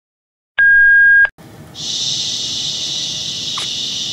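A short, loud electronic beep about half a second in, then a steady high hiss that starts just before two seconds in and runs on.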